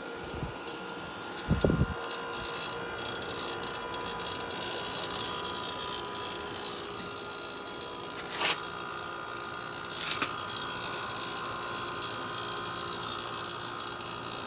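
1969 GM Frigidaire window air conditioner running on low cool, its fan and Tecumseh AK compressor making a steady hum and whine while the long-idle compressor works up to head pressure. A low thump comes about two seconds in, and two sharp clicks come near the middle.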